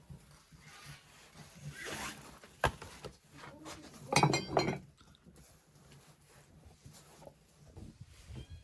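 Close handling noises: a brief scrape about two seconds in, then a single sharp knock, then a loud, quick rattling rasp about four seconds in.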